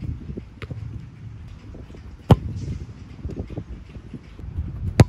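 A soccer ball struck hard by a kick, twice, about two and a half seconds apart, each a sharp single thump, over a steady low outdoor rumble.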